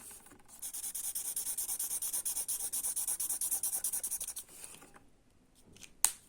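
A colouring pen or pencil scribbling rapidly back and forth on paper. The strokes stop about four and a half seconds in, and a single click follows near the end.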